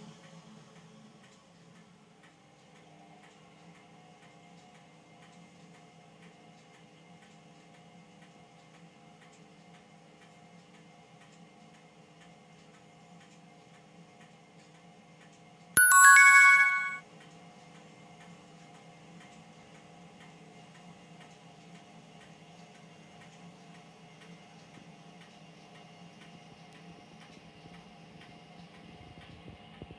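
Hotpoint Ariston washing machine standing with a steady faint electrical hum and faint regular ticking. About halfway through, a loud electronic beep tune of a few quick notes lasts about a second.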